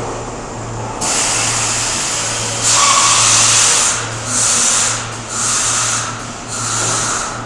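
R32 subway train's air brakes hissing as it comes to a stop: a long hiss starts about a second in and is loudest around three seconds in, then three shorter hisses follow about a second apart, over a low steady hum.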